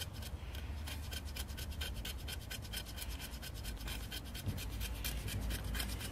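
Knife blade scraping a stick of wood in quick, even strokes, several a second, shaving off fine dust and scrapings for fire tinder.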